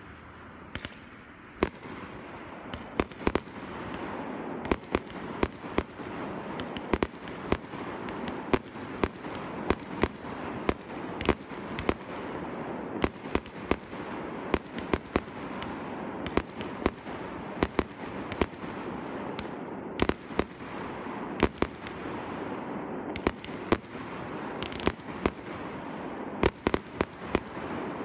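Aerial fireworks shells bursting overhead: a rapid series of sharp bangs, about one or two a second, over a continuous rumble.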